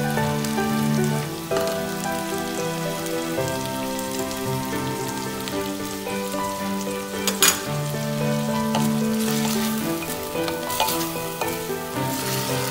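Pork, red onion and tomato frying in a clay pot with a steady sizzle, under background music of held notes. A short sharp sound stands out about halfway through.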